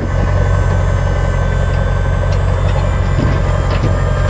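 Truck engine running steadily with a low drone and a faint steady whine, while the load of concrete is being dumped.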